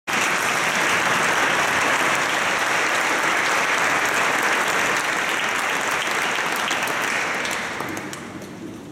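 Audience applauding steadily, fading away over the last second or so, with a few last separate claps.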